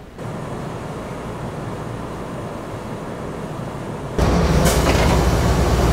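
Steady low rumbling ambience, then about four seconds in a sudden jump to a louder steady noise inside a Kotoden 1200 series train car (ex-Keikyu 700), where the ceiling fans are running.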